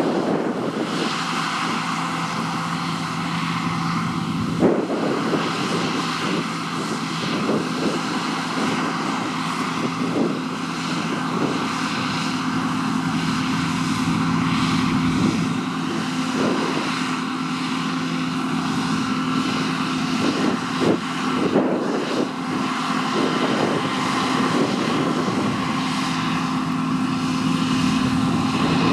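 John Deere T560 combine harvester running steadily, a continuous engine drone with a constant hum and a few brief knocks.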